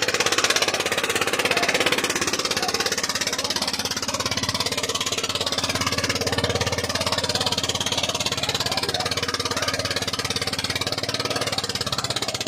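Eicher 241's single-cylinder diesel engine labouring at full throttle under heavy load as it drags a disc harrow, a rapid, steady knocking beat with no let-up.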